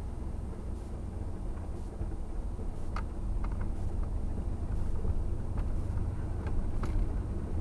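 1990 Ford F-150's 5.0-litre V8 running with tyre and road noise, heard from inside the cab as a steady low rumble that grows louder from about two seconds in.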